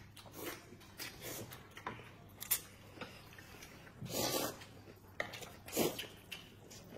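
Eating noodles with chopsticks: strands slurped and chewed, with a few sharp clicks, and a longer, louder slurp about four seconds in.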